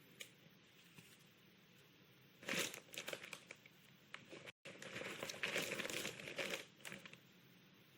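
Foley crumpling of a crinkly sheet material, dense crackling handled close to the microphone in two bouts, the second longer.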